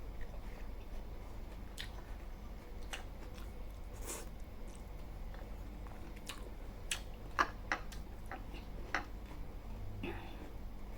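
A person chewing and eating close to the microphone: scattered small wet clicks and smacks at an uneven pace, a few louder ones past the middle.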